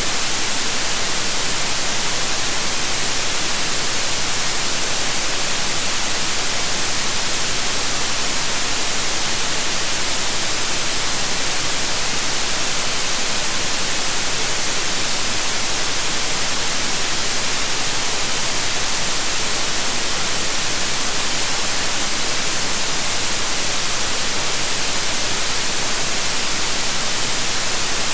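Steady generated white noise: an even, unbroken hiss, brightest in the high frequencies.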